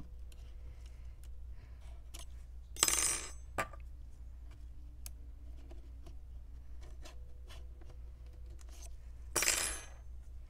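Small clicks and light scraping of metal tweezers picking at sticky adhesive tape in the edge of a laptop's screen assembly, with two louder half-second noisy scrapes about three seconds in and near the end.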